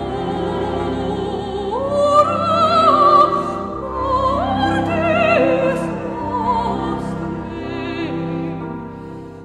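Operatic singing with wide vibrato over classical accompaniment; the melody steps up in pitch about two seconds in and again around four and a half seconds, and the music grows quieter near the end.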